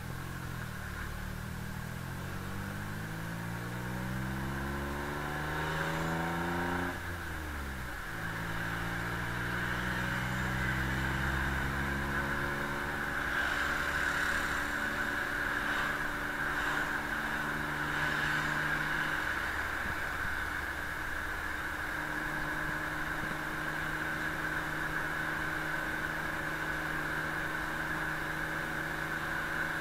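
Engine of an open-sided passenger vehicle heard from its rear seating, through a waterproof camera housing. It revs up in one long rising pull, drops in pitch at a gear change about seven seconds in, then runs on at a steadier pitch.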